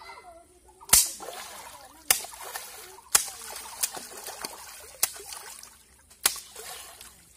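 A long stick slapping the pond surface, six sharp smacks about a second apart, each followed by splashing and sloshing water; the first smack is the loudest.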